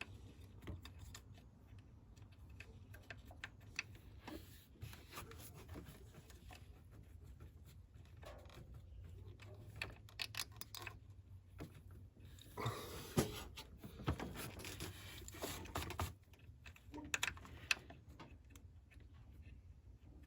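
Faint, scattered small clicks and scrapes of the coil pack's hold-down bolt being fitted and threaded in by hand, busier and louder a little past the middle.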